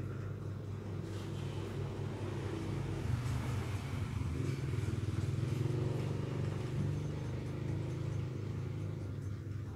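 A motor vehicle engine running, growing louder about three seconds in, at its loudest around the middle, then easing off toward the end.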